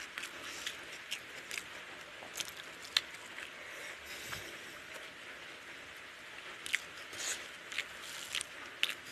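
Hand-eating sounds: fingers squishing and mixing basmati rice with egg curry on a plate, with irregular short wet clicks and smacks. The sharpest click comes about three seconds in, and the clicks bunch up near the end.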